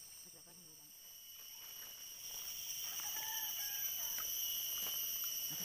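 Forest insects buzzing with a steady high-pitched drone, louder from about two seconds in, with a short faint call in the middle.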